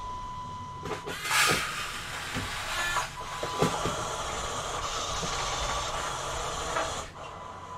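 A small robot tractor's trailer tipping out a load of feed grain: an electric servo whirs loudly about a second in, a few clicks follow, then a steady hiss of grain pouring that stops suddenly near the end.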